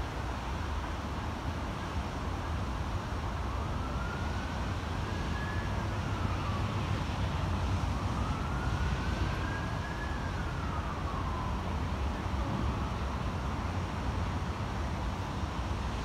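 Wind buffeting the microphone in a steady rumble. Through it a faint emergency-vehicle siren wails in two slow rise-and-fall sweeps in the middle.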